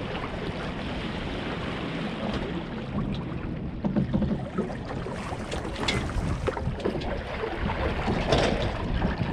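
Wind noise on the microphone over water rushing and lapping along the hull of a sailing catamaran under way. A few brief, sharper sounds come about six and eight seconds in.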